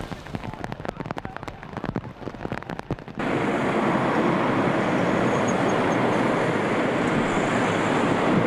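Irregular taps and patter at first, then a sudden switch about three seconds in to a loud, steady hiss of heavy rain pouring down in a cloudburst.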